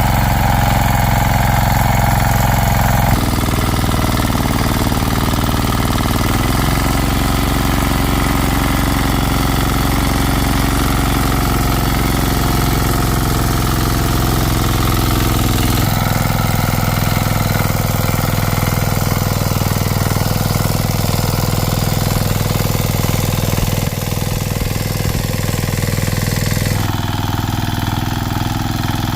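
An engine running steadily, with abrupt changes in its tone about 3, 16 and 27 seconds in.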